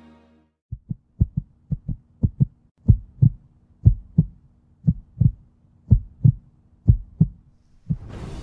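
Heartbeat sound effect: paired low thumps in a lub-dub rhythm. They come close together at first, then settle to about one beat a second. Music comes in near the end.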